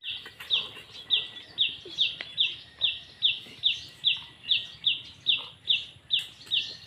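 A bird calling over and over: short, high chirps that fall in pitch, evenly spaced at about three or four a second.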